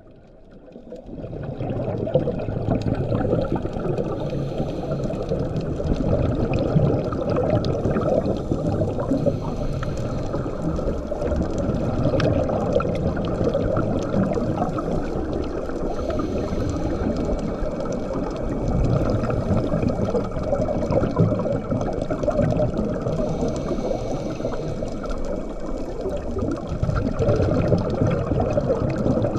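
Underwater sound picked up through a camera housing: a steady low rushing and gurgling of water with scuba divers' exhaled bubbles, fading in over the first two seconds.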